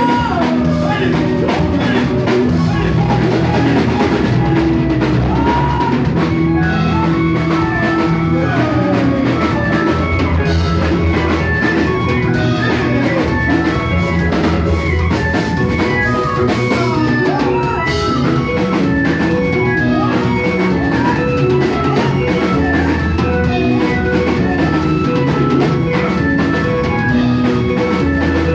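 Live gospel praise band playing an upbeat song: a drum kit keeps a steady beat under other instruments and the praise team's singing voices.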